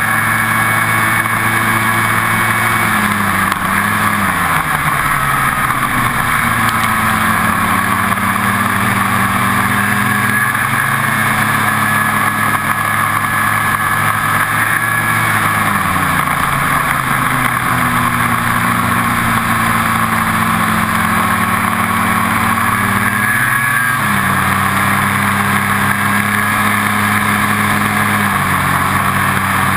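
Ski-Doo snowmobile engine running at speed along a snowy road, with wind and track noise. The engine note drops and climbs back several times as the throttle is eased off and reapplied.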